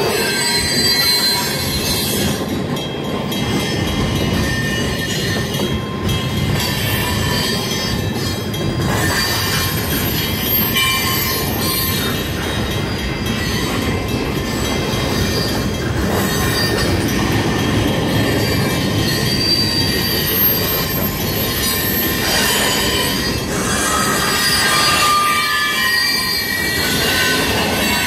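Cars of a CN freight train rolling past, with a steady rumble and the wheels squealing in thin, high, shifting tones.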